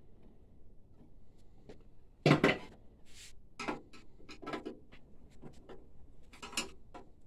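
Hard objects clattering and knocking as printer parts and tools are handled: one sharp, loud clatter about two seconds in, then a few lighter knocks and clicks.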